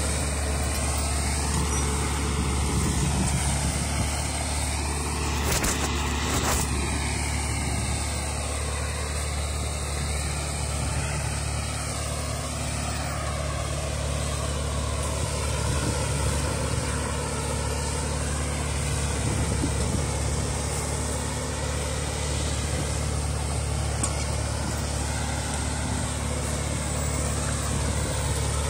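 LKT forestry skidder's diesel engine running steadily under way, with a couple of brief knocks about six seconds in.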